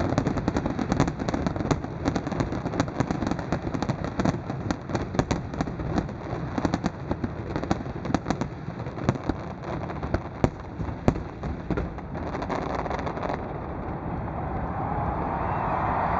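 Aerial fireworks going off in a dense run of rapid cracks and bangs that thins out about twelve seconds in. Near the end the bangs give way to a steady noise that swells up.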